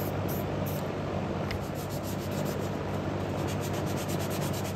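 Hand block sanding of body filler on a steel truck hood: sandpaper on a sanding block rubbed back and forth over filler dusted with guide coat, in quick rhythmic strokes, several a second, over a steady low hum.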